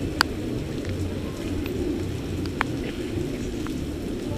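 Steady heavy rain falling, heard as a low, even rush, with raindrops striking the camera in a few sharp ticks: a loud one just after the start and another a little past halfway.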